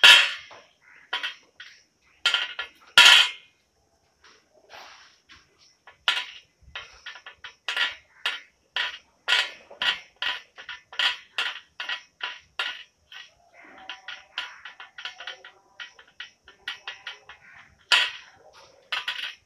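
Light metallic clinks and taps of a hand tube bender and copper pipe being handled. It is an irregular run of quick clicks with a few louder knocks.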